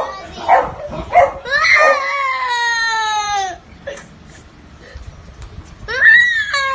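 Young child crying hard: short sobs, then a long wail from about a second in that slides down in pitch, a short pause, and another wail starting near the end.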